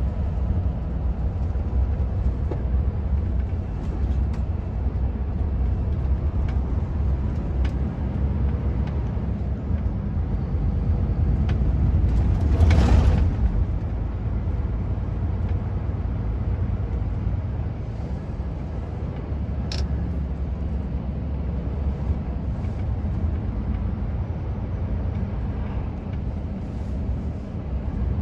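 Steady low rumble of a road vehicle's engine and tyre noise while driving. About twelve seconds in there is a brief louder whoosh, which swells and fades over a second or so.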